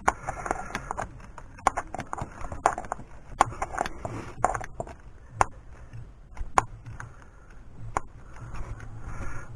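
Irregular clicks and knocks of hand tools and metal parts being handled in a car's engine bay, roughly one every half second to second.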